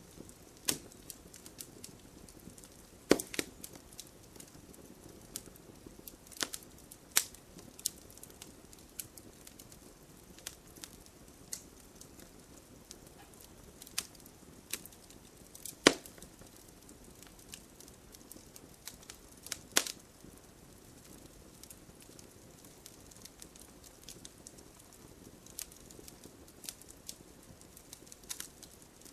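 Campfire crackling: irregular sharp pops and snaps of burning wood over a soft, steady hiss of the flames, with a few much louder snaps scattered through.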